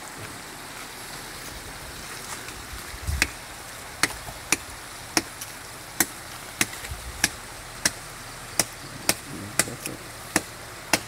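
A blade chopping through brush and branches: sharp, separate chopping strikes, beginning about four seconds in and following each other at irregular intervals, up to two or three a second.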